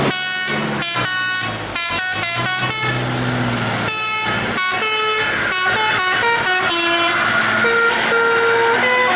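Bus telolet musical air horn of the Basuri type playing a melody. It starts with a quick run of short notes, and longer held notes come near the end.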